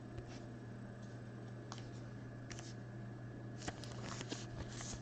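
Trading cards being handled from a freshly opened pack: scattered soft rustles and light clicks of cards sliding against each other, busier toward the end, over a steady low hum.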